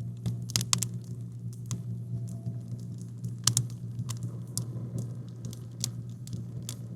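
Campfire crackling: irregular sharp snaps and pops, several a second, with a few louder cracks, over a steady low hum.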